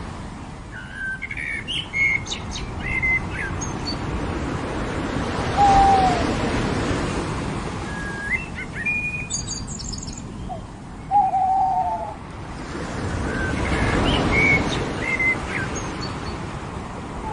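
Small birds chirping and whistling in three short bouts, with a few lower slurred calls, over ocean surf washing on a beach. The surf swells twice.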